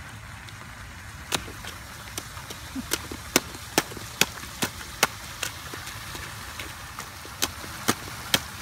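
Rubber rain boots stomping and splashing in a shallow puddle on pavement: a run of sharp splashes about two a second, a pause, then three more near the end.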